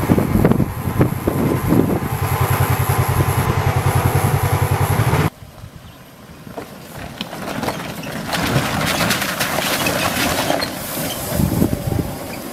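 A loud, evenly pulsing motor-like running sound that cuts off abruptly about five seconds in. Then comes quieter crackling and crunching of a Chevrolet Colorado ZH2 hydrogen fuel-cell pickup's tyres rolling over rocks and gravel, with a low rumble near the end.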